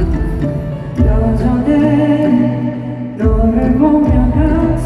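Male vocalist singing live into a microphone over backing music with deep bass thumps, amplified through an arena sound system.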